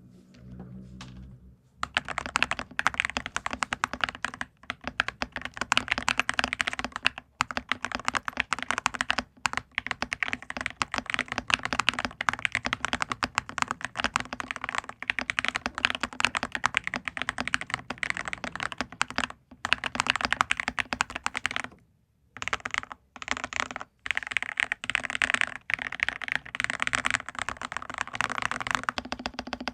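Pabile P40 ortholinear mechanical keyboard with Huano Sakura switches, polyfill-damped and tempest-modded, being typed on fast and continuously. The typing begins about two seconds in, with a few brief pauses and a choppier stretch a little after twenty seconds.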